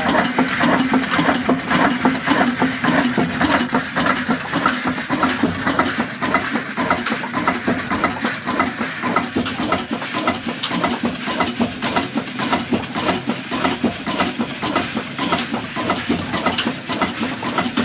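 Shareef 18 hp single-cylinder 'Kala Desi' cold-start diesel engine running steadily, with a fast, even beat.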